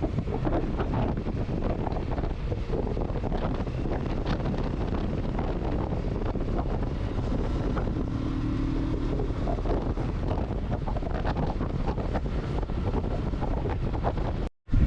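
Heavy wind buffeting the microphone on a moving motorcycle, with the Kawasaki Versys 650's parallel-twin engine running steadily underneath. The sound cuts out completely for a moment near the end.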